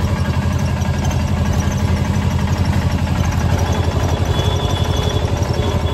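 Engine of a small passenger vehicle running steadily, heard from inside its cabin, with a fast, even throb.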